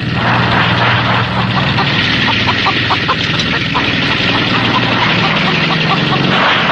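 An engine running steadily with a constant low hum, with short faint tones scattered through the middle of it.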